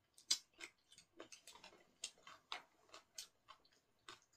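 Faint, irregular light clicks and taps of wooden chopsticks against bowls during eating, the sharpest about a third of a second in.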